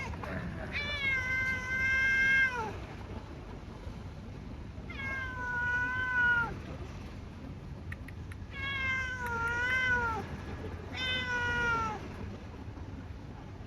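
A cat meowing: four long, drawn-out meows, each a second and a half to two seconds long, a couple of seconds apart, the pitch wavering and dropping off at the end of each.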